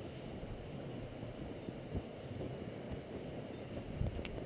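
Dog sled runners scraping and rustling over wet snow as the sled creeps along, with a couple of soft thumps from the sled about two and four seconds in.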